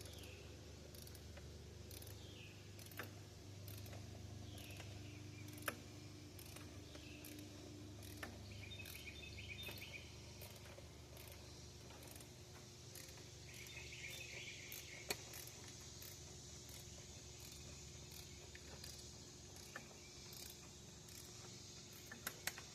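Faint ratcheting of a torque wrench with a few sharp single clicks, tightening intake manifold bolts to the first-pass spec of 44 inch-pounds.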